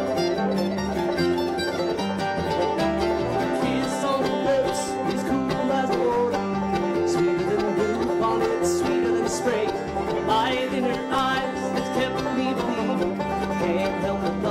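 Bluegrass band playing an instrumental passage: banjo, mandolin, acoustic guitar and upright bass.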